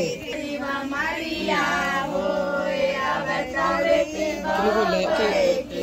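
High-pitched voices singing a song, long notes held and sliding between pitches.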